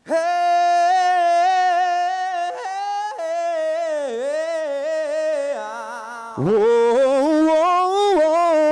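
A single voice singing long held notes through the concert PA, with scoops and slides between pitches and no accompaniment, starting abruptly after a moment of silence.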